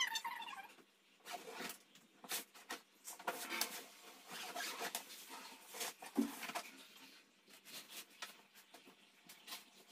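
Faint rustling and clicking as a hard-shell suitcase is zipped open and clothes and a plastic bag are handled. A brief high tone sounds at the very start.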